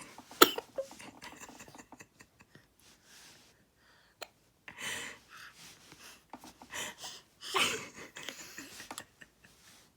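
A three-month-old baby's short sharp hiccup, then several breathy gasps and snuffles over the next few seconds as a sneeze builds and doesn't come.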